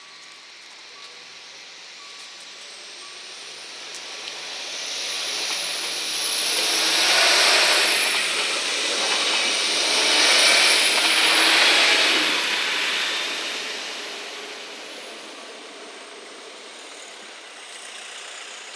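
Rurtalbahn diesel railcar VT 212 passing over a level crossing: its engine and wheels on the rails build up from about four seconds in, are loudest as the cars cross the road, and fade as it moves off.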